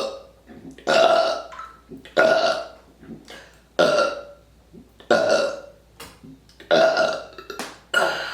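A woman burping on command: six loud belches in a row, about one every second and a half, each starting abruptly and fading away.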